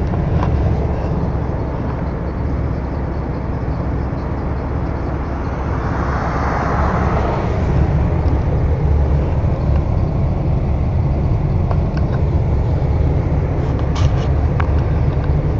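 Road noise inside a moving car: a steady low rumble of engine and tyres, with a louder rush swelling and fading about six to eight seconds in, and a few light clicks near the end.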